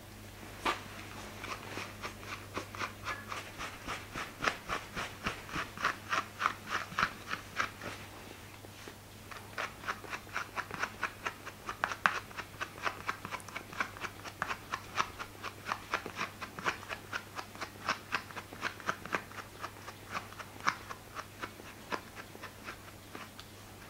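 Slicker brush strokes through a toy poodle's curly coat: quick, regular scratchy brushing, about three or four strokes a second, with a short pause about eight seconds in.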